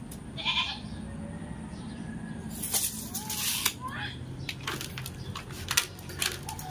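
A goat bleating twice, a short call near the start and a longer one about three seconds in, with light metallic clicks and knocks in between.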